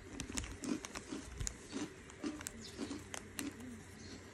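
Crunchy puffed snack curls being bitten and chewed close to the microphone: a run of sharp crunches, about three or four a second.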